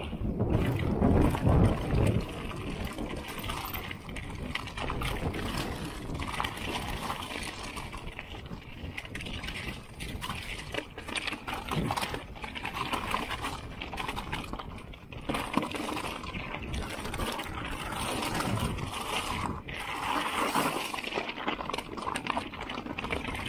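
Mountain bike clattering down a loose, rocky singletrack: tyres crunching and knocking over stones and the bike rattling with each hit, with wind buffeting the microphone.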